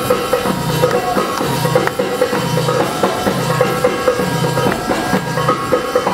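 Percussion-led music with a steady, repeating drum beat, and sustained tones running above the drums.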